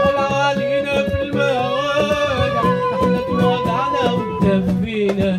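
Live acoustic ensemble of darbouka, clarinet, violin, guitar and flute playing an Arabic song: a long held, wavering melody line over steady darbouka strokes.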